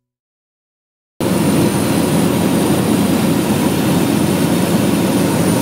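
Float plane cabin noise in flight: a loud, steady drone of engine and propeller with rushing air. It cuts in suddenly about a second in, after silence.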